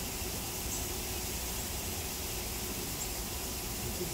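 Steady outdoor background noise with a low rumble underneath and a few faint, short, high chirps.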